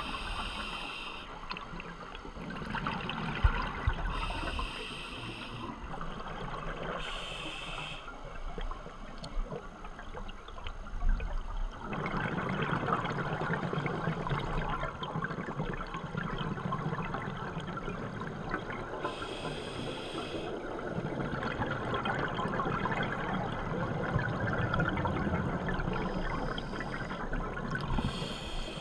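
Scuba breathing heard underwater: short hisses of inhaled air through a regulator every several seconds, between the bubbling rush of exhaled air, which grows louder and steadier about twelve seconds in.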